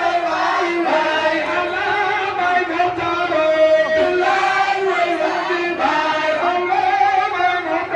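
A group of voices chanting a devotional song together, with long held notes that slide between pitches.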